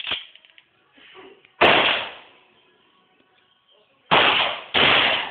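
Shotgun blasts, loud and sudden, each fading out within about half a second: one about a second and a half in, then two close together near the end.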